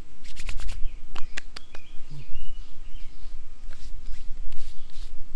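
Hands slapping aftershave splash onto a freshly shaved face and neck: two quick runs of sharp pats, near the start and about a second in. Birds chirp near the middle, over a steady low rumble.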